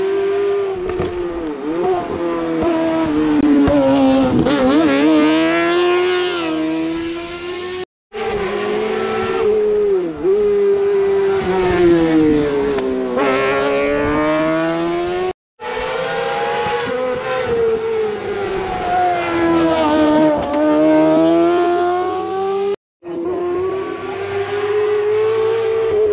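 Rally car engines revving hard, pitch climbing and dropping through the gears as the cars drive the stage. The sound breaks off abruptly three times, splitting it into four short passes.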